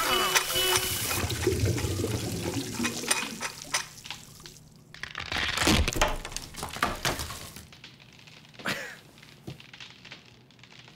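Sound effects of plumbing going wrong: water rushing and pouring through pipes, with knocks, creaks and cracking as a bathroom ceiling splits around a stuck plunger. The loudest crunch comes about six seconds in, and another near nine seconds.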